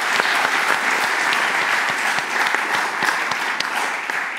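Audience applauding: a dense patter of many hands clapping, thinning slightly near the end.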